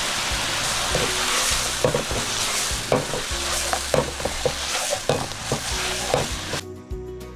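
Pork sizzling in a hot pan as it is stirred, with a metal spatula knocking against the pan several times. The sizzle cuts off suddenly near the end, leaving faint background music.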